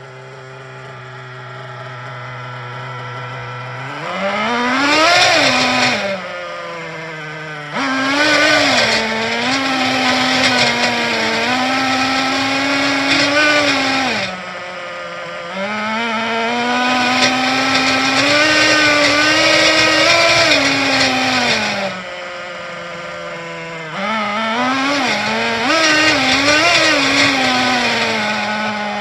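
Traxxas 3.3 two-stroke nitro engine in an RC truck on a roller stand, being broken in. It idles, then is throttled up four times, once briefly and then in holds of several seconds. Each time the pitch rises and wavers, then falls back to idle.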